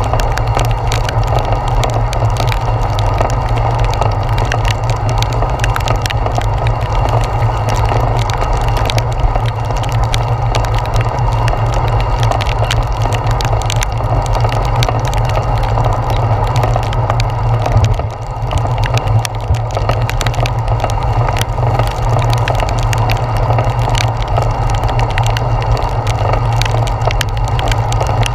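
Steady rush of rain and riding wind on a handlebar-mounted GoPro Hero 4, with a low rumble and frequent sharp ticks of raindrops striking the camera; it eases briefly about two-thirds of the way through.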